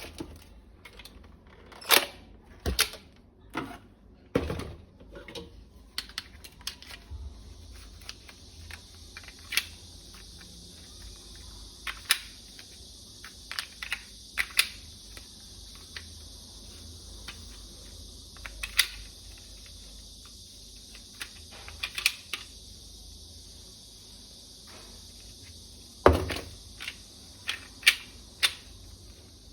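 Irregular sharp clicks and taps of a plastic toy rifle being handled, about a dozen spread out and unevenly loud, with a steady faint hiss starting about seven seconds in.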